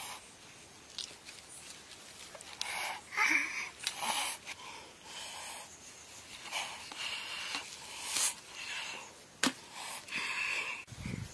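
A knife sawing through the charred skin and cooked flesh of a fire-roasted pumpkin: about ten short, uneven scraping strokes, with one sharp click near the end.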